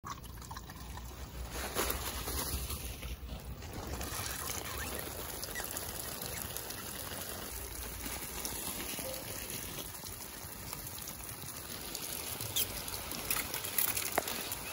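Water spraying from a homemade rotating PVC sprinkler and pattering onto leafy plants: a steady hiss, with a few sharp drip-like ticks near the end.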